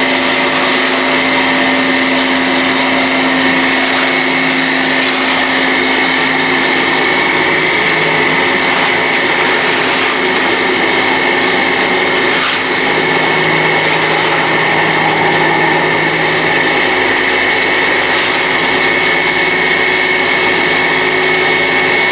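Electric concrete vibrating table running steadily with a loud, even hum, shaking a cylinder of fresh concrete to compact it fully. A few light knocks sound over the hum.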